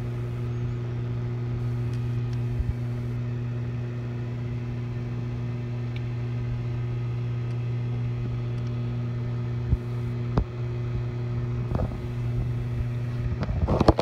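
Microwave oven running with a steady, even electrical hum. A few short clicks sound over it, most of them in the last few seconds.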